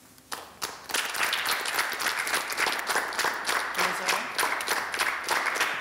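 Studio audience applauding a guest's entrance: a few scattered claps, then steady applause from about a second in.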